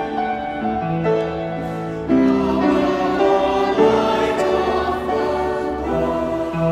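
Church choir singing an anthem in held chords, growing fuller and louder about two seconds in.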